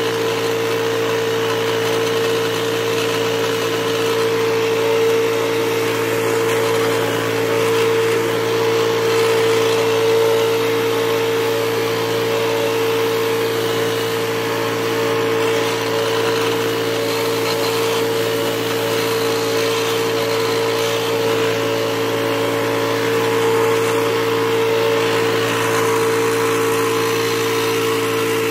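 Powermate Cyclone PWB163150E walk-behind leaf blower, a four-stroke gas engine driving a fan, running steadily as it blows leaves: an even engine drone with a steady tone over a loud rush of air.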